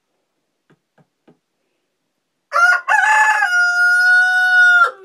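Rooster crowing once, about two and a half seconds in: a couple of short broken notes, then one long held note that drops away at the end.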